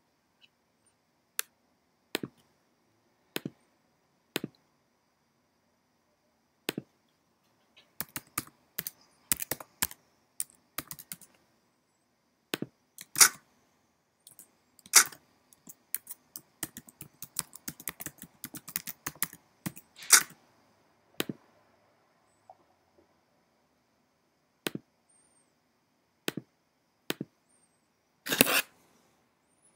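Computer keyboard typing: single key presses about a second apart at first, then two runs of quick typing in the middle, and a louder burst of presses near the end.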